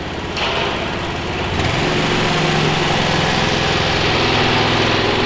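Small engine running steadily, getting louder about a second and a half in and then holding, with a steady hiss over it.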